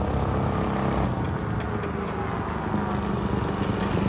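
Coleman CT200UEX minibike's small single-cylinder engine running steadily.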